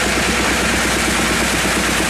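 Sawmill bandsaw machinery and its drive engine running steadily and loudly, with a fast, even rattling chug.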